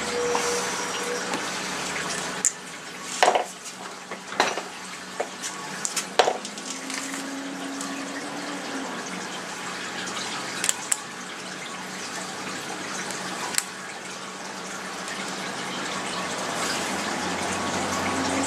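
Steady rushing, water-like noise with a few sharp clicks and knocks of parts and tools being handled, most of them in the first seven seconds or so, and a brief low hum in between.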